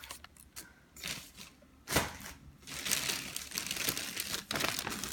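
A plastic sweet packet crinkling as it is handled, after a single sharp knock about two seconds in.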